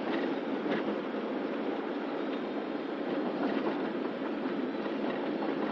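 Steady road noise inside a van's cab cruising on a motorway: tyres on the concrete surface and the engine running at even speed.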